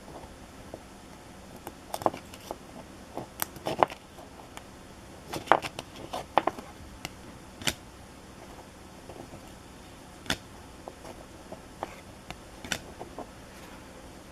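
Trading cards being handled on a table: irregular sharp clicks, taps and light crinkles, loudest about five and a half seconds in.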